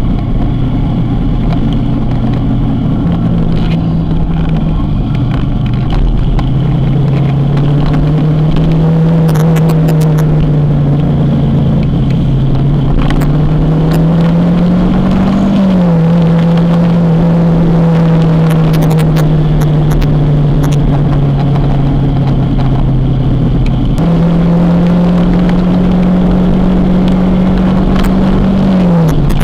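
Kawasaki motorcycle engine running under way at a steady pace. Its pitch holds fairly level, climbing slowly and then dropping sharply about halfway through and again near the end.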